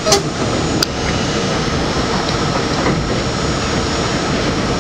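New York City subway train running at speed on elevated track, heard from inside the front car: a steady rumble of wheels on rail, with a few sharp clicks from the wheels over the track in the first second.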